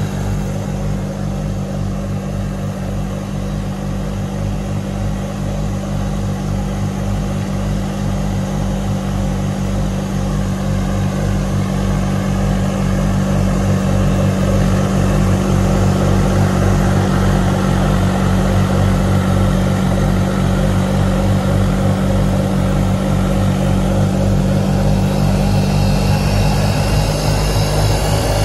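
Honda 5518 tractor's engine running steadily under load while it drives a front-mounted snowblower through compacted snow. The sound grows louder around the middle and stays up.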